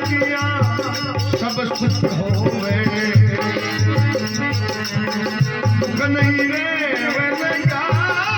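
Folk devotional bhajan music: a steady drum beat with rattling, jingling percussion under a wavering melodic line.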